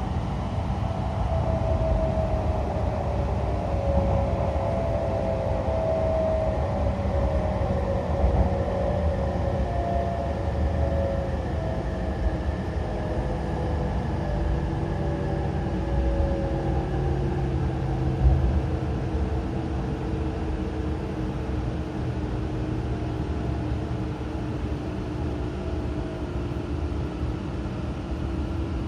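E5 series Shinkansen motor car running, its IGBT-VVVF inverter and traction motors (Toshiba-built, by the uploader's reckoning) whining in several tones that slowly fall in pitch as the train slows, over steady low rumble from the wheels and rails.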